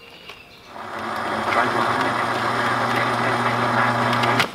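Cassette playing through the 1985 Pontiac Fiero's factory tape deck, very slowly: a low, steady drone that starts about a second in and cuts off suddenly near the end. The slow playback is a sign of friction in the old tape mechanism.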